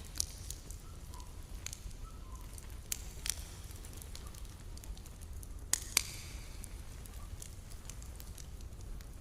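Wood campfire crackling, with sharp pops scattered through and the loudest pair about six seconds in, over a steady low rumble.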